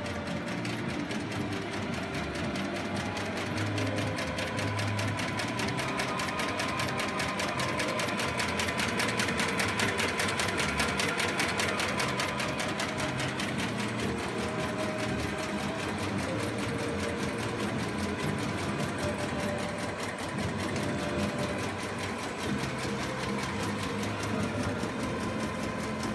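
Automatic high-speed paper bag making machine running at production speed: a fast, even, steady mechanical clatter from its cutting, folding and feeding mechanisms cycling bag after bag.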